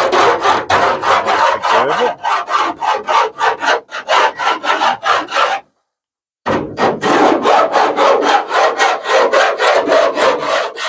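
Metal file rasping along the freshly cut edge of a van's sheet-steel side panel in quick back-and-forth strokes, about three a second, deburring the new window opening. The strokes stop briefly just past the middle, then resume.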